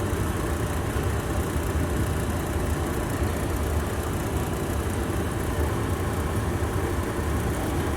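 Steady low machine hum with an even rumbling hiss, unchanging throughout.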